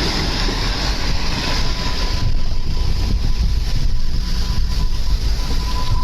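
Strong wind buffeting the microphone, a heavy continuous rush with a deep rumble; it turns duller about two seconds in.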